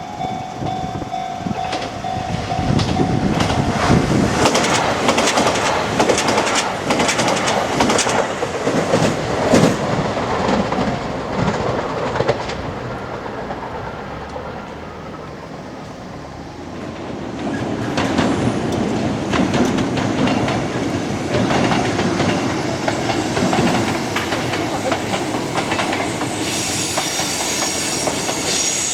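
Kintetsu Minami Osaka Line train passing over a level crossing, its wheels clattering over the rail joints, with a steady warning tone from the crossing in the first few seconds. The noise eases about halfway through, then swells again, and a high wheel squeal sets in near the end.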